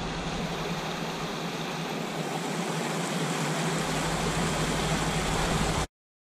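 Rushing mountain creek, snowmelt water pouring over rocks in a steady noise that cuts off suddenly near the end.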